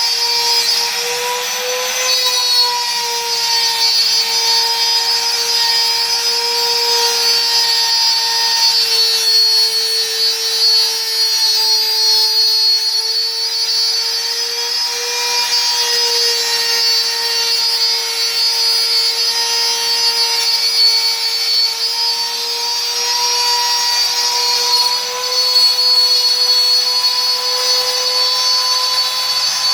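Electric random-orbital sander running steadily, sanding a Corian solid-surface countertop to remove scratches. It gives a steady motor whine with a hissing scrub of the pad on the surface, and the pitch wavers slightly as pressure changes.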